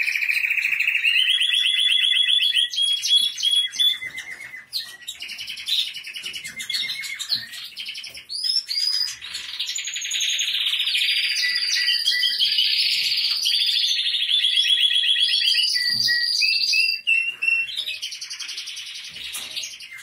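Caged canaries and finches singing and chirping together, in long, fast trills of rapidly repeated high notes that run on one after another with only brief breaks.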